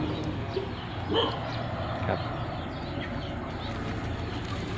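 A dog yipping and whining, with a short yelp about a second in, over a steady low hum.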